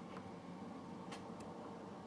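A few faint, light clicks from a lock pick working the pin stack of a 6-pin euro cylinder lock under tension, over a steady low hum.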